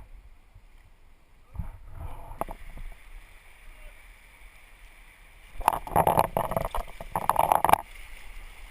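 A raft's oar working the river: a couple of dull knocks, then about two seconds of loud close-up splashing and rushing water as the oar blade goes through the water.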